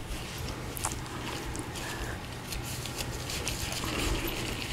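Soft lemon cookie dough being scooped from a bowl and rolled into a ball between gloved hands: faint squishing and rubbing with a few small ticks, over a low steady hum.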